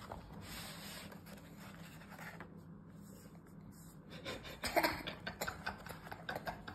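Faint rubbing, then from about four seconds in a run of light clicks and taps as eggs are handled in a cardboard egg tray.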